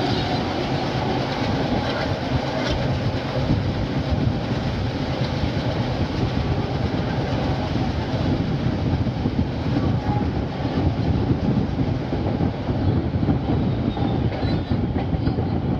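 Train running along the track: a steady rumble of wheels on rail, with occasional faint clicks over rail joints.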